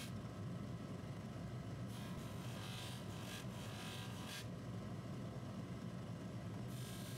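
Bench polishing motor spinning a cloth buffing wheel with a steady hum, and a hissing rub each time a small metal watch part is pressed against the wheel: about two seconds in, again from about three to four and a half seconds, and near the end.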